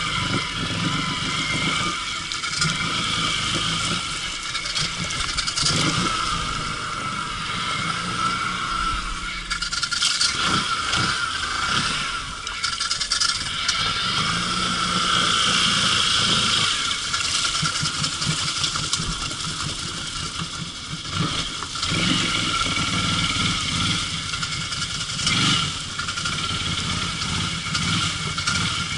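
A Can-Am ATV's engine running steadily as the quad rides through shallow water, with splashing and some rattling and scraping over the trail.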